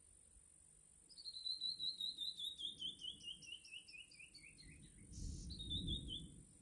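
A bird singing a long series of short whistled notes, about five a second, that steps steadily down in pitch over some four seconds, then a brief higher run near the end. A low rumble swells underneath toward the end, over a steady high-pitched hum.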